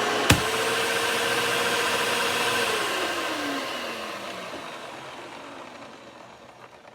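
Hoover WindTunnel 2 upright vacuum's motor running with a steady hum, with a sharp click about a third of a second in. From about halfway through, the motor winds down, its pitch falling as it fades. The vacuum's airway is completely clogged, so it has no suction.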